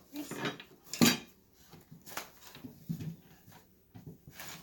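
Metal pieces of a flat-pack stove clinking and clattering as they are handled and set down: a handful of separate knocks, the loudest about a second in.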